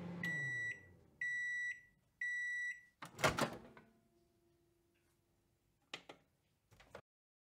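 Microwave oven finishing its cycle: the running hum winds down, then three beeps of about half a second each sound, and the door latch pops open with a loud clack. A couple of faint clicks follow near the end.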